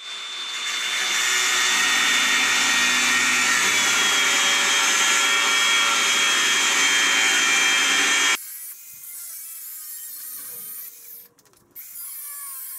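Angle grinder spinning up and cutting through a rusted, seized anti-roll bar bolt: a steady high whine over harsh grinding that builds over the first second and stops abruptly about eight seconds in.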